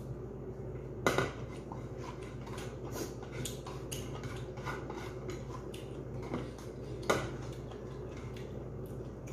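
Dish and eating noises at a table: a plate knocks down onto the tabletop about a second in, and a second knock comes about seven seconds in. Many small clicks and taps fill the rest as fingers pick food from the plate.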